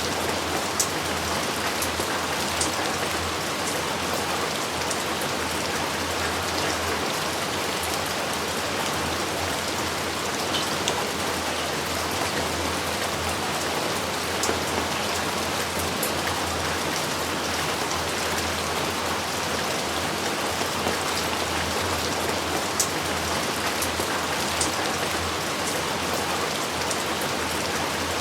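Steady heavy rain falling, with now and then a single louder drop ticking sharply.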